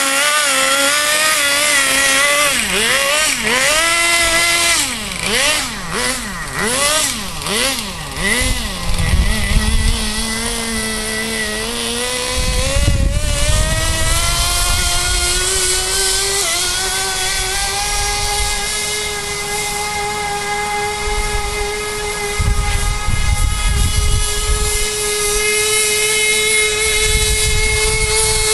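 Small nitro glow engine of a Kyosho Blizzard RC snowcat, untuned and running on 10% nitro fuel: revved up and down in quick blips for the first several seconds, then held at a steady high whine that slowly climbs in pitch.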